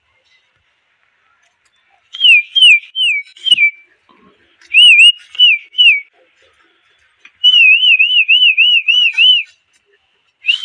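A person whistling a wavering, up-and-down call in three bursts, the kind of whistle used to call animals to their feed. It starts with a few swooping notes and then three more, and ends in a fast warble of about four waves a second.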